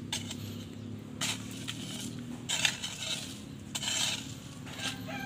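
Dry soil clods scraped and pushed with a hand tool in a few short scrapes about a second apart, as jengkol beans are buried in the soil to ferment.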